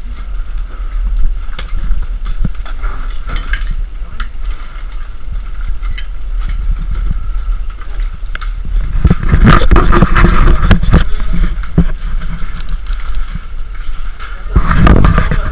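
Movement noise on a body-worn camera: clothing and gear rustling, scuffing and bumping as an airsoft player moves and climbs, with scattered clicks and a low rumble. The loudest bouts come about nine to eleven seconds in and again near the end.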